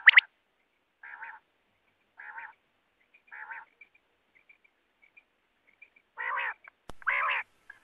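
Common quail calling: three soft short calls about a second apart, then two longer, louder calls near the end, with a sharp click between them.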